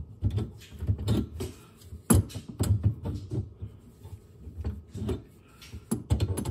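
A spanner clicking and knocking against a plumbing fitting as it is turned to tighten the filter connection, with irregular handling knocks throughout and one sharper click about two seconds in.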